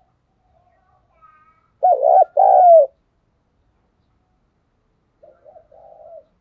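Spotted dove cooing: one loud two-note coo about two seconds in, then a fainter coo phrase of short notes running into a longer note near the end.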